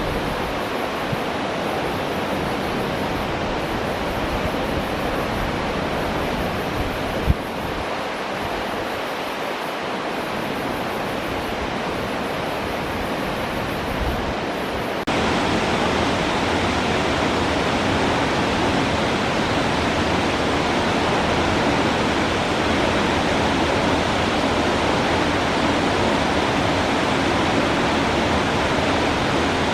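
Khlong Lan Waterfall's falling water, a steady rush with no let-up. It gets suddenly louder about halfway through, and there is one short click about a quarter of the way in.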